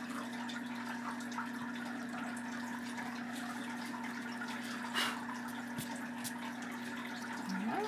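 A steady low hum with hiss, with a faint rubbing of an eraser on drawing paper and one sharp tap about five seconds in.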